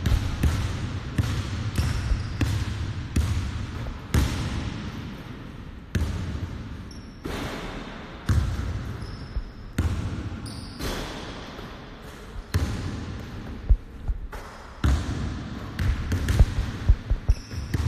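Basketballs bouncing on a hardwood gym floor: irregular thumps, each echoing in the hall, with a few brief high squeaks.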